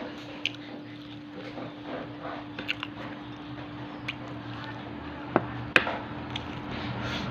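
A person eating: biting and chewing food, with scattered small clicks and two sharper clicks about two-thirds of the way through, over a faint steady hum.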